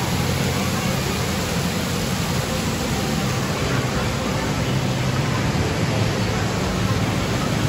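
Steady wash of indoor water park noise: running and splashing water from play-structure sprays, mixed with a din of distant voices.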